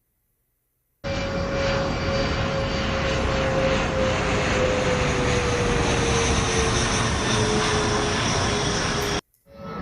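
Aircraft engine drone of a plane flying over, a dense rumble with a steady tone whose pitch slowly falls as it passes. It cuts in abruptly about a second in and cuts off just as abruptly near the end.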